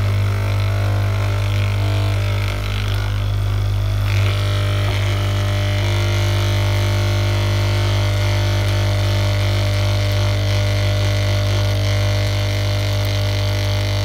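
Dental lab vibrator buzzing steadily under a rubber mixing bowl while a spatula stirs and scrapes pink die stone, shaking the bubbles out of the mix.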